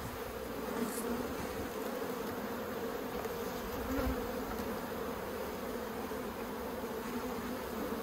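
Steady hum of many honeybees flying around an opened hive.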